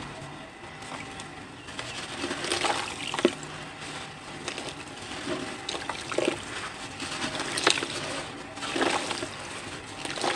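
Dry cement powder and chunks crumbled and rubbed between the hands and let fall, a crackly, hissing rustle with louder crunches about three, six, eight and nine seconds in.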